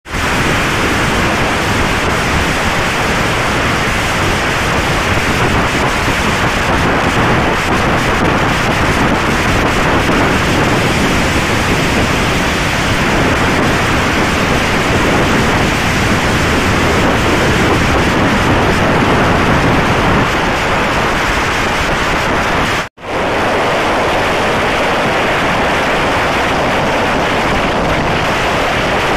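Loud, steady wind rushing over the microphone, mixed with road noise, from a vehicle travelling at highway speed. The noise cuts out for a moment about 23 seconds in, then resumes unchanged.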